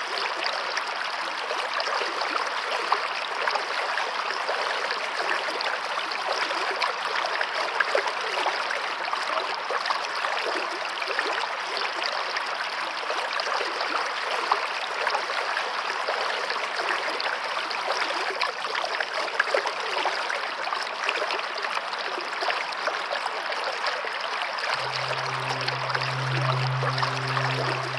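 Running water, like a stream, rushing and splashing steadily at an even level. A low held musical drone comes in near the end.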